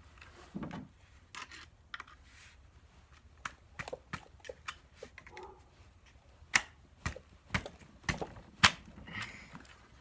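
Light, irregular clicks and taps of hand tools and small parts on a BB gun as its sight is worked loose during disassembly, with a run of sharper clicks about every half second in the second half.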